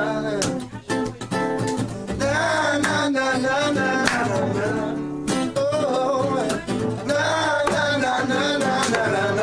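Live acoustic band playing: strummed acoustic guitar and drum kit, with a man singing lead. The playing drops out briefly about a second in, then picks up again.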